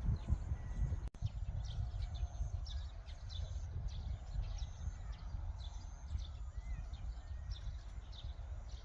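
Wind rumbling and buffeting on the microphone outdoors, with short high chirps repeating irregularly in the background. The sound briefly cuts out about a second in.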